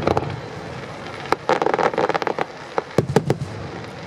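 Aerial firework shells going off in a display: sharp bangs at the start, a quick cluster about a second and a half in, and several more about three seconds in.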